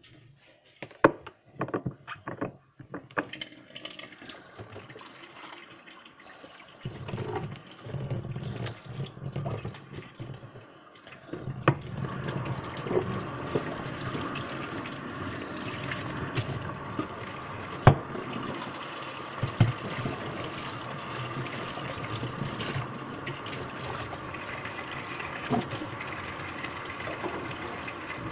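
A few sharp knocks and clatter of plastic being handled in the first seconds, then tap water running steadily into a plastic chicken waterer at a sink from about twelve seconds in, with an occasional knock.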